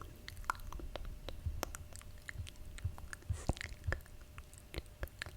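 Close-miked ASMR mouth sounds: irregular wet clicks and smacks of the lips and tongue, with a brief soft hiss about three and a half seconds in.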